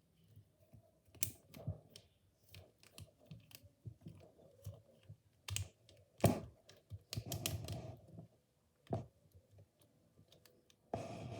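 Irregular plastic clicks and rattles from a bendable segmented fidget toy being twisted and folded by hand into a compact shape, with a few denser bursts of clicking partway through and near the end.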